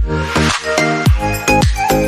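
Electronic dance background music with a steady kick-drum beat, about three beats a second, and synth chords.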